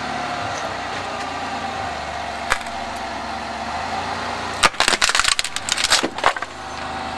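A car's front tyre rolls slowly over a wooden plank laid on a plastic toy blaster, with the engine running steadily at low speed. A single sharp crack comes about a third of the way in, then a rapid run of loud cracks and snaps a little past halfway as the plank splits under the wheel.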